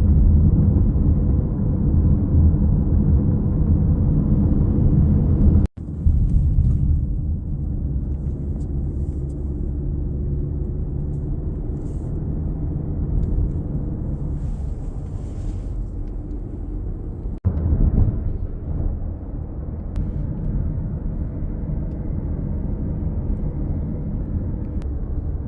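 Monsoon storm winds buffeting the microphone: a loud, steady, low rumbling roar, with two abrupt breaks where the recording is cut.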